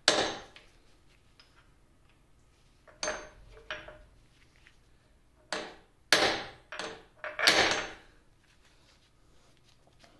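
Hammer striking a center punch to drive out a control-lever pin on a 1950 LeBlond Regal lathe headstock: a string of sharp metallic blows with a short ring after each, one right at the start and about seven more at uneven intervals from about three to eight seconds in. The pin is rusted in and does not move.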